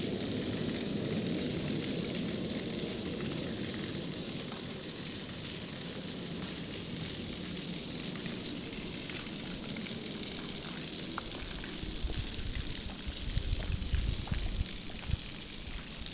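A waterfall's water rushing and splashing, as a steady hiss. About three-quarters of the way in, irregular low buffeting rumbles on the microphone join it.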